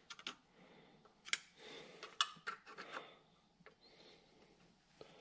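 Hand-tool handling noise at a mini lathe's change-gear end: irregular sharp metal clicks and short scrapes as a screwdriver and fingers work on the gears and cover, a few of the clicks louder than the rest.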